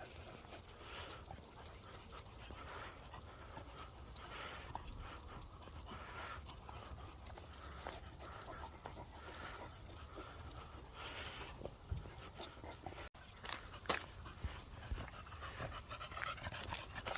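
Dogs panting softly in short, uneven breaths, over a steady high background hiss.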